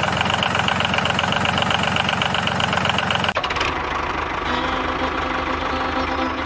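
An engine running with a fast, even knock, which turns smoother about three seconds in.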